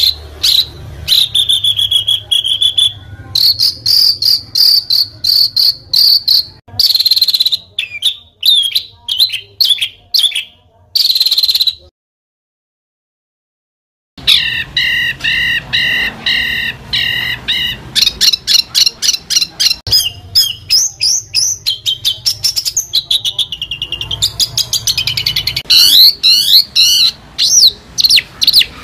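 Songbird singing a fast run of harsh repeated notes, chips and trills, one rapid burst after another, with a gap of dead silence about twelve seconds in where the recording is spliced.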